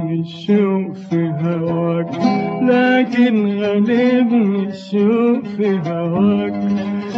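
A man singing long, ornamented notes with vibrato in maqam Kurd, with a plucked oud accompanying him.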